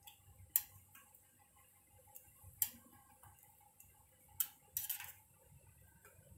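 Spatula knocking and scraping against a non-stick pan while stirring thick chicken curry: a few sharp clicks spread out, with a short rattling cluster about five seconds in.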